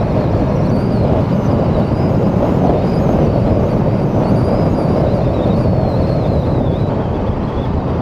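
Steady rush of wind over the microphone with the road and engine noise of a 2022 Yamaha R7's parallel-twin motorcycle cruising at expressway speed.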